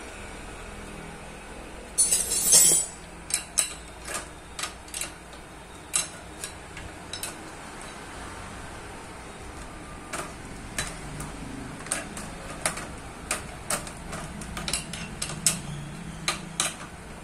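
Small metal clicks and clinks from bicycle gear parts and tools being handled: a quick rattling cluster about two seconds in, then scattered single clicks and taps.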